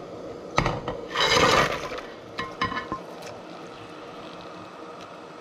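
Razor clams and prawns tipped off a plate into a stainless steel pan of boiling water: a knock, then a loud splash about a second in, followed by a few light clinks of shells against the pan.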